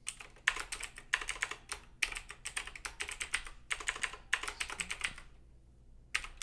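Typing on a computer keyboard: quick runs of keystroke clicks for about five seconds, then a pause near the end.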